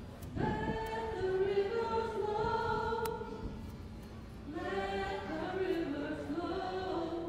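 Choir singing a hymn in two phrases, with a pause of about a second between them: the closing hymn after the dismissal at the end of Mass.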